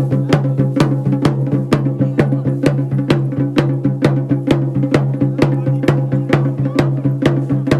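Fast, even drumming at about four strokes a second, over a steady low tone.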